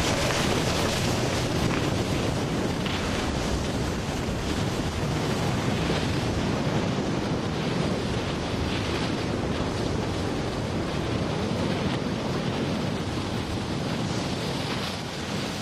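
Wind rushing over the microphone mixed with the steady hiss of a snowboard sliding across packed snow.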